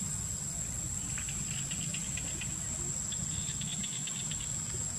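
Insects droning with a steady, high-pitched tone, with scattered short chirps over a low, steady rumble.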